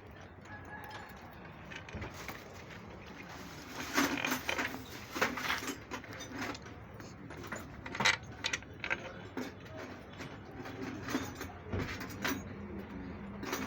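Metal tools and engine parts clinking and knocking as they are handled, in irregular short clinks and rattles, loudest about four and eight seconds in.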